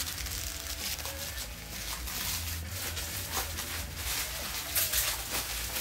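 Light rustling and scattered clicks of packaging and plastic parts being handled, over a steady low hum.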